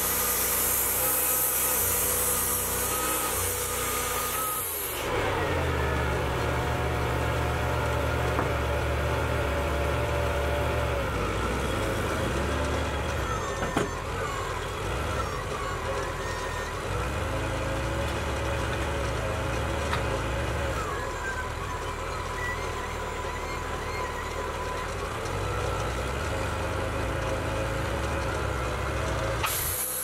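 Portable band sawmill's engine running steadily. For the first five seconds it runs with a bright high hiss, then it settles to a lower, steadier run for most of the time, with a few short falling whines. Near the end the high hiss comes back as the mill runs up for the next cut.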